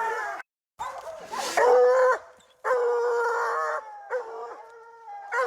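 Young bear-hunting dogs baying at a treed bear, drawn-out bawls and howls with shorter barks between; two long held bawls come in the middle. A brief dropout about half a second in cuts the sound for a moment.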